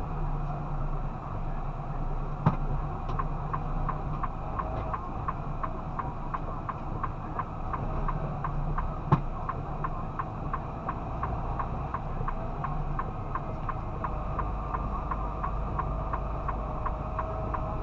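Steady engine and road drone inside a tractor-trailer's cab while driving, with a light regular ticking about three times a second and two sharper single clicks, one a few seconds in and one near the middle.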